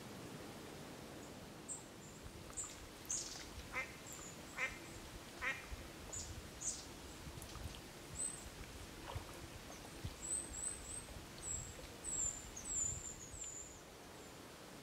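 A duck quacking three times, a little under a second apart, with thin, very high-pitched chirps of small birds throughout that come thicker near the end.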